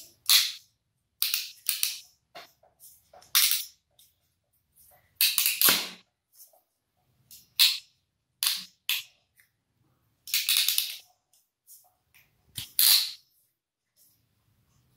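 Hand crimping pliers squeezing a metal crimp sleeve onto a copper wire joint: about ten short, sharp clicking and rasping bursts, irregularly spaced, as the handles are worked.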